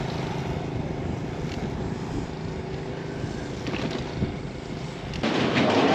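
A motor running steadily, a low hum over a noisy hiss, which changes about five seconds in to a louder, brighter hiss.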